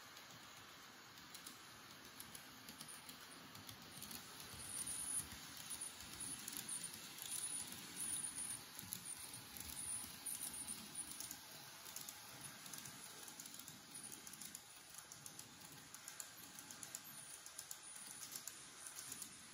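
Model Odakyu 50000 VSE Romancecar train running on its track: faint, rapid clicking and rattling from its wheels on the rails. It grows louder for several seconds around the middle as the train passes close.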